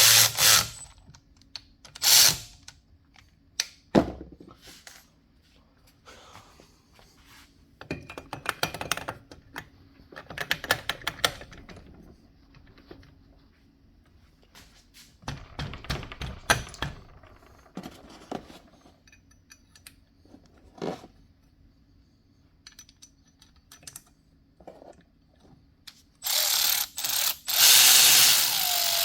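Hand tools clicking, knocking and clattering in intermittent bursts while working on a small dirt bike's engine, with quiet gaps between. Near the end a loud rushing noise lasts about three seconds.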